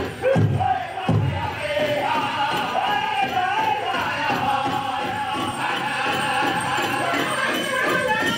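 Powwow drum and singers: a big drum struck in unison, with voices chanting a high, wavering song over it. A few heavy strokes about a second in, then a lighter, quicker steady beat.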